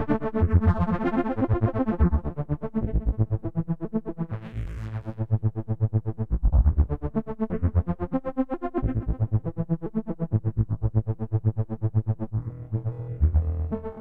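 Korg Opsix Native FM software synthesizer playing its 'Memories Pad' preset. Sustained chords are chopped into rapid, even rhythmic pulses over a deep bass that shifts every couple of seconds, with a brief noisy rising sweep about four seconds in.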